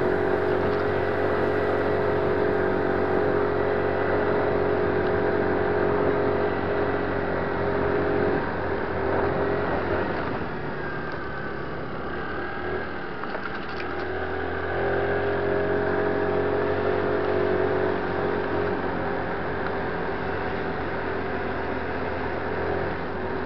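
A 50cc scooter's engine running under way, with wind and road noise. The engine note eases off about nine seconds in and picks back up about fifteen seconds in, as the scooter slows through a turn and pulls away again.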